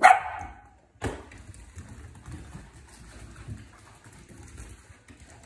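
A corgi puppy barks once, sharply, right at the start. From about a second in there is quieter, uneven scuffling and rustling.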